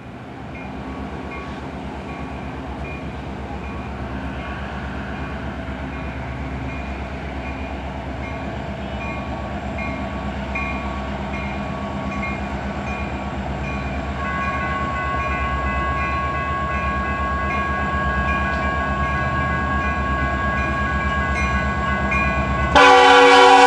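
Diesel freight locomotives approaching, their low rumble slowly growing louder, with a faint rhythmic ringing throughout. Steady horn tones build in the second half, and the locomotive horn blasts loudly about a second before the end.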